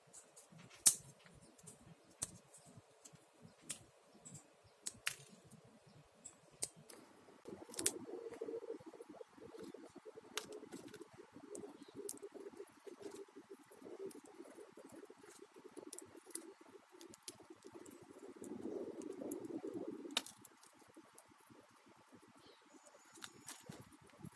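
Faint light clicks of small plastic parts being handled, then about seven seconds in a steady back-and-forth rasp of sandpaper on a plastic model-kit part for about twelve seconds, stopping abruptly, followed by more light clicks.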